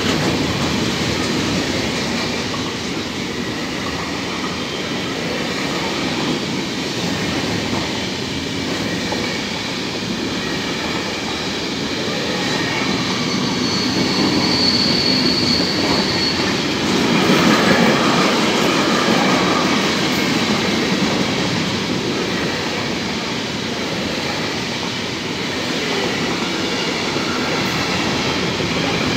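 Container freight train of intermodal flat wagons rolling steadily past, with a continuous rumble and clatter of wheels on the rails. A high-pitched wheel squeal sounds for a couple of seconds about halfway through.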